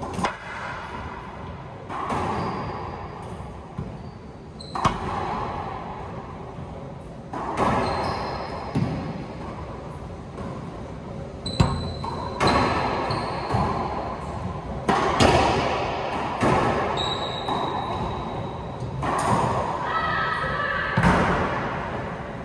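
Racquetball rally: the rubber ball cracking off racquets and slapping the court walls and floor every second or two, each hit ringing in the enclosed court, with brief sneaker squeaks on the hardwood floor in between.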